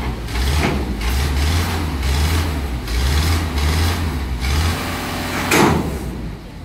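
Heavy diesel engine of a sideloader truck running with a low, uneven rumble. There is a short hiss about five and a half seconds in.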